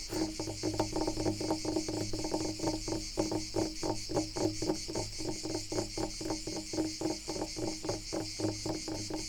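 Fingernails scratching wood in a fast, even rhythm of about five strokes a second, with insects chirring steadily in the background.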